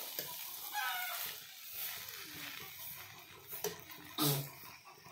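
Vegetables sizzling faintly in a hot steel kadai as a metal spatula stirs them, with a domestic animal calling once about a second in and a louder short sound near the end.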